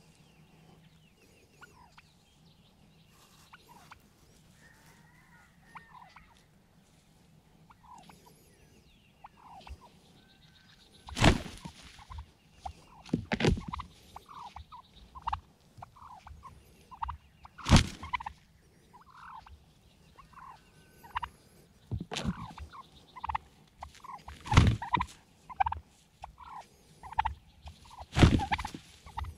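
Wild turkey gobblers gobbling at close range: about six loud gobbles a few seconds apart, beginning about eleven seconds in, with many short, softer calls in between.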